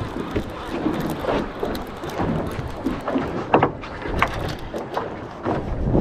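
Wind buffeting the microphone over choppy water beside a small boat, with scattered sharp clicks and knocks; the loudest knock comes a little past halfway.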